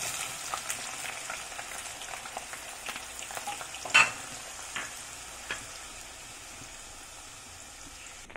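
Sliced onions sizzling in hot coconut oil in a stainless-steel kadai, stirred with a wooden spatula that knocks against the pan several times, loudest about four seconds in. The sizzle slowly eases as the onions cool the oil.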